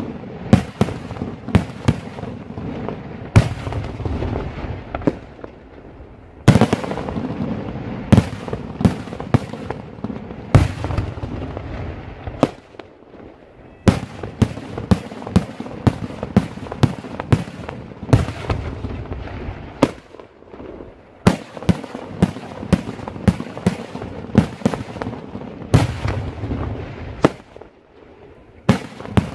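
Daytime aerial fireworks: an irregular volley of shell bursts going off in sharp bangs, several a second at the densest, with their echoes filling the gaps between. There are two brief lulls, about twelve seconds in and near the end.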